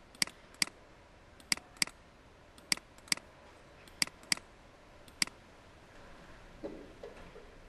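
Computer mouse buttons clicking: nine sharp clicks over about five seconds, most of them in quick pairs.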